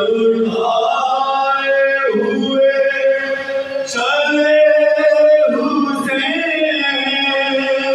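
Several men chanting a soz, a Shia Muharram lament, together without instruments, in long held, wavering notes.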